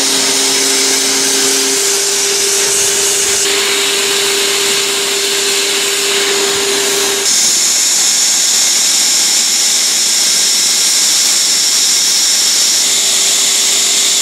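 Hand-held hot-air plastic welding tool blowing steadily, its fan hissing with a steady whine whose pitch changes twice.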